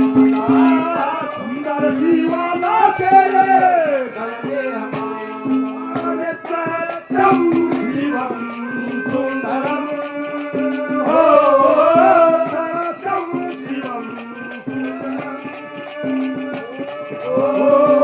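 Live ragini folk music playing an instrumental passage: a melody with gliding, bending notes over a held drone note, with quick hand-drum strokes and rattling, jingling percussion.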